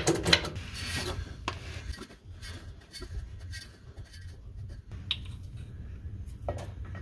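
Rubbing and scraping handling noises with scattered metal clicks as the driveshaft is turned by hand at its rear flange to bring the bolts round, over a steady low hum. A sharper metal clack comes about five seconds in and another near the end, as a wrench is put to a flange bolt.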